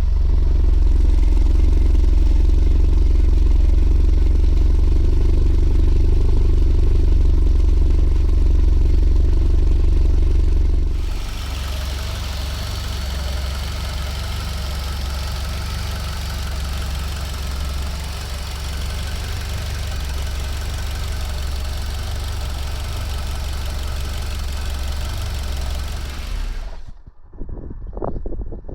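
A freshly rebuilt Mitsubishi 4B11T turbocharged 2.0-litre four-cylinder runs steadily on its first run after the rebuild, and the owner says it sounds pretty good. About eleven seconds in, the sound turns quieter and hissier. Near the end it drops away to an uneven, duller sound.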